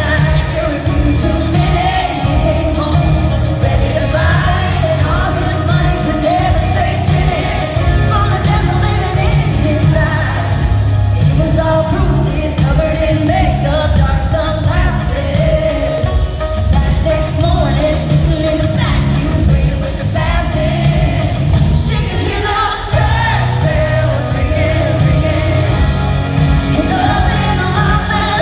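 Live country-pop song: a woman singing lead over a full band with a heavy, steady low end, recorded loud from the audience.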